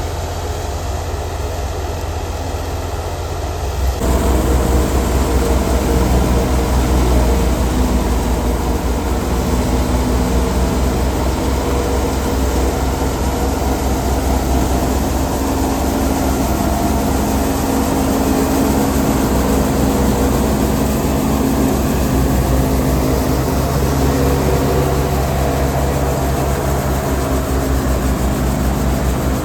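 Wheat thresher (haller) running steadily with a deep engine drone and a rapid mechanical beat, louder and fuller from about four seconds in.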